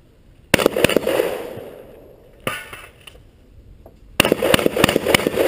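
Gunfire from a competitor shooting a 3-gun stage: a quick string of shots about half a second in, one or two shots about two and a half seconds in, and a longer rapid string starting about four seconds in, each string trailing off in echo.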